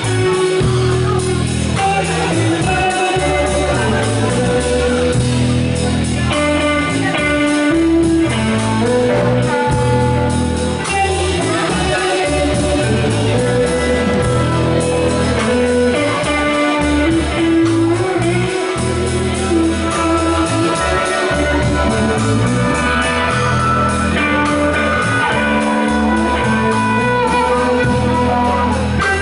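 Live rock band playing: electric guitar, electric bass and drum kit, with a harmonica playing held notes along with them.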